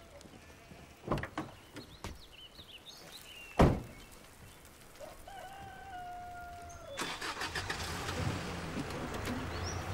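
Ambulance rear doors shut with a heavy thud, after a couple of lighter knocks, while birds chirp. About seven seconds in, the ambulance's engine starts and keeps running with a low steady hum.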